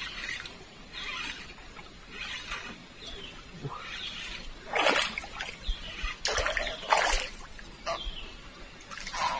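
Hooked baung catfish splashing and thrashing in the river water in irregular bursts as it is brought in, the sharpest splashes between about five and seven seconds in.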